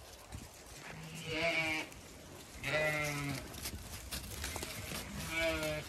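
Zwartbles sheep bleating three times, each call just under a second long and wavering.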